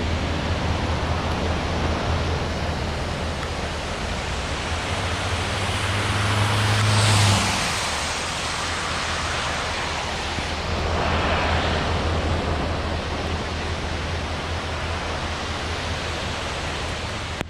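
Steady rush of Bridal Veil Falls and the fast river below it. A low hum runs underneath and stops about seven seconds in, and the rushing noise swells twice, around seven and again around eleven seconds in, like vehicles passing on the wet road.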